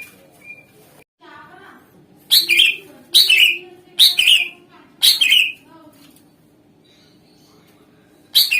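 Green leafbird (cucak ijo) singing loud, sharp whistled calls, four in a row about a second apart, then a pause and one more near the end.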